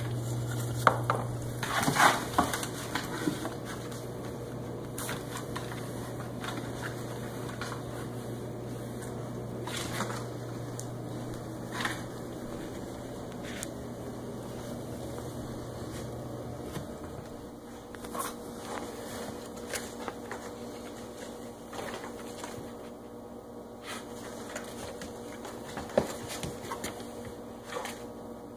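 Dachshund rummaging inside a maze of cardboard boxes: scattered knocks, scrapes and rustles on cardboard, with a busier burst about 2 s in and another near the end. A low steady hum underneath stops about halfway through.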